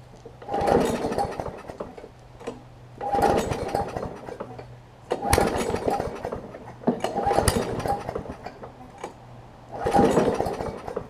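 Briggs & Stratton Classic push-mower engine being pull-started five times in a row, the recoil starter rattling as the engine turns over on each pull without staying running. The owner suspects bad fuel or water in the fuel.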